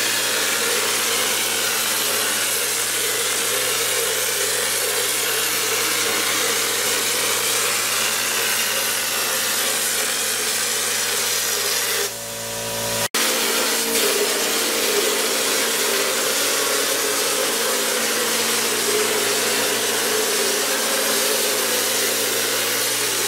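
Air-powered drywall texture hopper gun spraying orange peel texture onto a ceiling: a steady hiss of compressed air and spattering mud. It eases for a moment just after halfway, then goes on.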